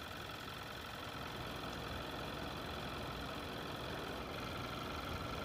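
Car engine idling steadily, heard faintly.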